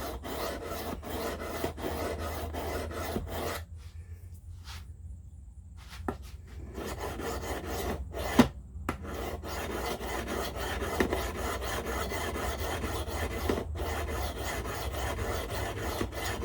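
An S35VN steel knife edge scraped rapidly back and forth on a 280-grit sharpening stone, the blade held at a steep angle to grind out chips and rolls in the edge. The strokes stop for about two seconds near four seconds in, and a sharp tap comes a little after eight seconds before the scraping resumes.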